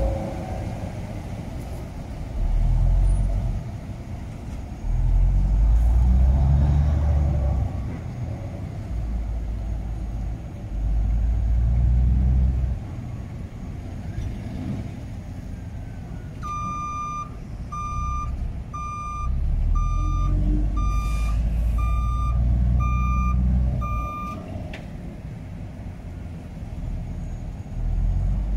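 Diesel locomotive engine rumbling as it moves slowly, the low sound swelling and easing every few seconds. For about eight seconds in the middle a reversing alarm beeps about once a second.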